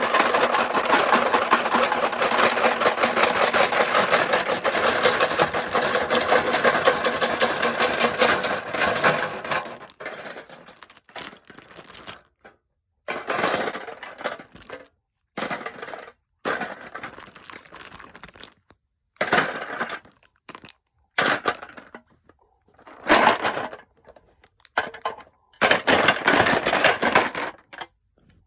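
Plastic pens clattering and clicking as they are handled: a dense, fast rattle for about the first ten seconds, then short bursts separated by silent pauses.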